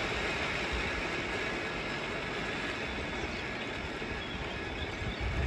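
Car of the water-powered Lynton and Lynmouth cliff railway running on its rails: a steady rumble and rushing noise that eases off slightly.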